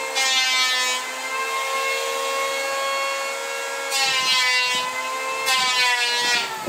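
A power saw cutting wood: a steady motor whine, with the cut turning louder and harsher at the start, about four seconds in and again near the end, before the saw stops.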